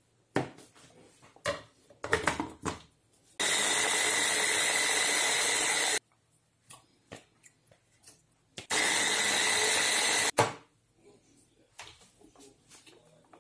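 Electric hand blender with a chopper bowl running in two steady bursts, one of about two and a half seconds and one of nearly two, with a constant high whine, puréeing tomatoes. Knocks and clatter come first as the bowl and motor unit are handled, and a sharp knock comes just after the second burst.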